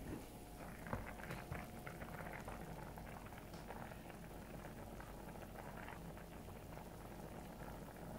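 Thick chicken and vegetable soup boiling in a wide pan on an electric hob, a steady crackle of bursting bubbles, with a couple of sharper clicks about a second in.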